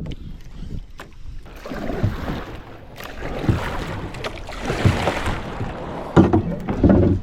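Water slapping and sloshing against a small boat's hull in irregular surges, with wind on the microphone.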